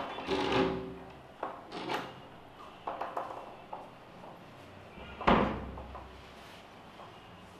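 Apartment front door with a metal hasp and bolt being worked: a click and a short metallic rattle of the latch, then several knocks, and then the door is shut with a loud bang about five seconds in.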